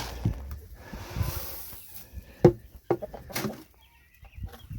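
Poultry clucking and calling softly, with a few sharp knocks in the middle.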